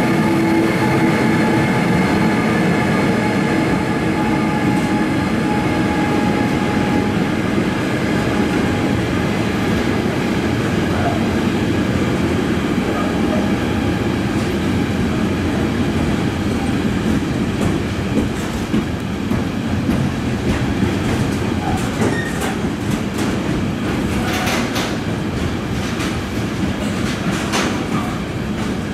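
Electric-hauled container freight train rolling past close by: a steady hum from the electric locomotive fades as it goes by. It is followed by the continuous rumble of the container wagons' wheels on the rails, with clicks over the rail joints in the second half.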